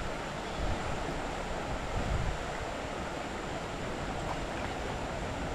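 Steady rush of a swollen, muddy stream's current running fast over riffles, with a low fluctuating rumble underneath.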